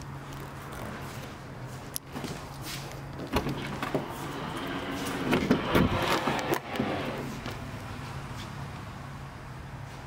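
Land Rover Discovery Sport tailgate being opened: clicks from the latch about two seconds in, then a whirring that rises and falls for a few seconds. A steady low hum runs underneath.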